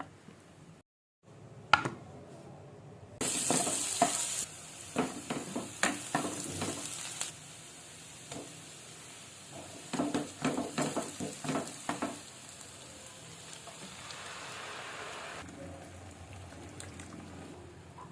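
Pizza sauce sizzling in a hot pan while a spoon stirs it and knocks and scrapes against the pan. The sizzle jumps up loud about three seconds in and settles lower a few seconds later.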